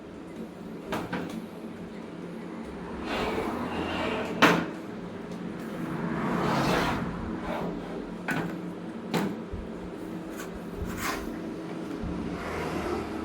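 Scattered clicks and knocks of objects being handled and set down, with a couple of longer scraping or rustling stretches, over a steady low machine hum. The sharpest knock comes about four and a half seconds in.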